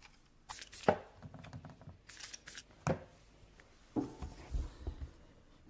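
Close-miked handling noises: a few sharp clicks and short rustles with quiet between them, and a cluster of small knocks and scrapes near the end.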